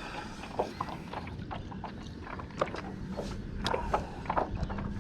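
Small irregular clicks and knocks around a plastic kayak, with water lapping at the hull, over a low rumble of wind.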